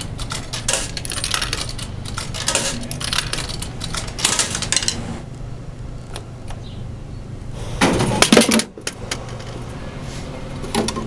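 Coins fed one by one into a soda vending machine's coin slot, clinking and clicking as they drop inside. A few seconds later comes a loud clattering clunk as a can drops through the machine into the delivery tray.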